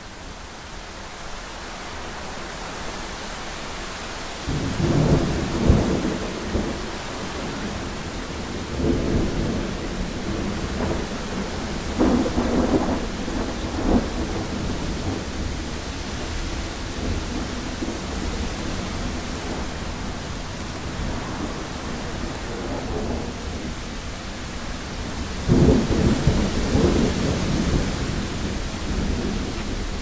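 Thunderstorm: steady rain that swells in over the first few seconds, with rolls of thunder rumbling four times, about five seconds in, around nine seconds, twice around twelve to fourteen seconds, and a long loud roll near the end.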